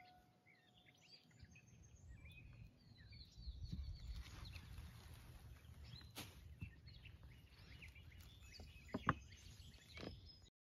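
Faint outdoor ambience with birds chirping, broken by a few light knocks, the sharpest about six and nine seconds in.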